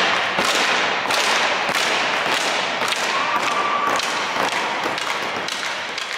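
Ice-hockey skate blades carving the ice on a series of skating strides, a scraping swish every half second or so.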